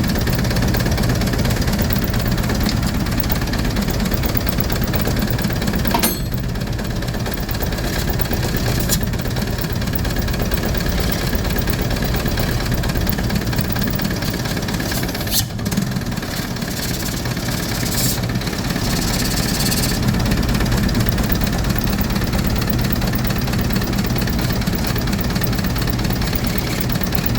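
Isuzu 4BC2 four-cylinder diesel engine idling steadily.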